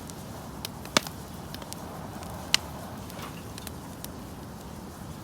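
Firewood crackling in a burning campfire: irregular sharp pops and ticks, the loudest about a second in and again about two and a half seconds in, over a steady rushing hiss.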